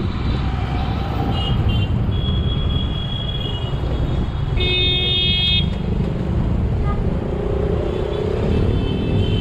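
Street traffic with a steady rumble of engines and several car horns honking. The loudest honk comes about five seconds in.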